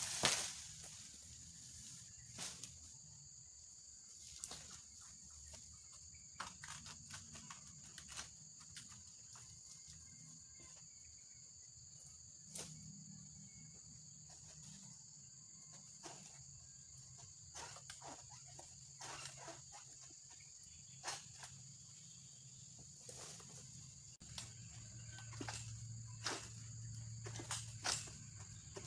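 Steady high chirring of insects, with scattered knocks, clicks and rustles from an egrek, a long-poled harvesting sickle, working in the crown of a tall oil palm; the loudest knock comes just after the start.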